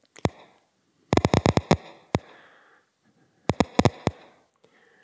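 Recorded action potentials of a single rat hippocampal place cell played as audio clicks: a single click just after the start, a rapid burst of clicks about a second in, one more near two seconds, and another burst at about three and a half to four seconds. The cell fires only when the rat is in its place field, the upper-left corner of the box.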